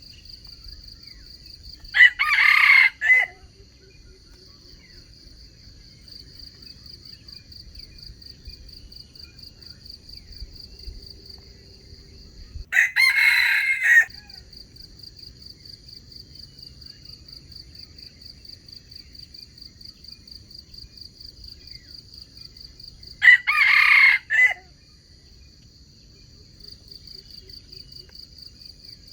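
Junglefowl (wild chicken) rooster crowing three times, about ten seconds apart, each crow short and loud. A steady high, finely pulsing insect buzz runs underneath.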